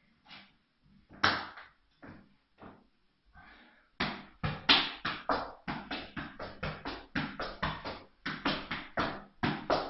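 Golf ball being kept up with the feet: a few scattered sharp knocks, then from about four seconds in a fast, even run of taps, several a second, in a small room.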